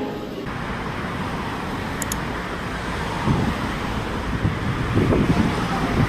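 Outdoor street noise: steady traffic, with wind buffeting the microphone in low gusts a few times.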